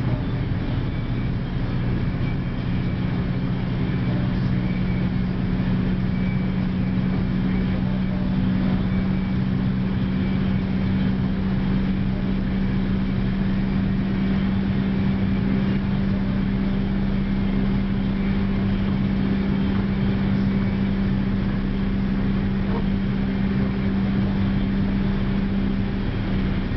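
A car heard from inside the cabin at a steady highway cruise: a constant engine drone at an unchanging pitch over steady road and tyre noise.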